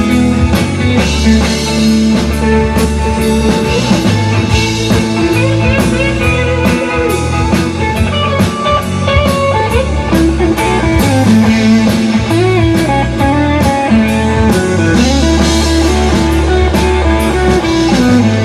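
A live rock band playing an instrumental break, with guitar out front over bass and a drum kit keeping a steady beat.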